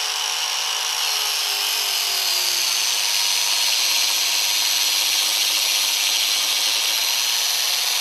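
Angle grinder with a 1 mm metal cutting disc running and cutting through stainless steel braided fuel hose, a steady high grinding. The motor note drops slightly about one to two seconds in as the disc bites into the hose.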